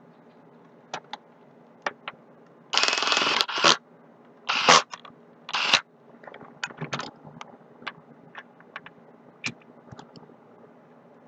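Hands handling laptop parts: a copper heatsink and fan assembly being fitted onto a Dell laptop motherboard. There are a few sharp clicks, then four short loud scrapes between about three and six seconds in, followed by a scatter of small clicks and taps.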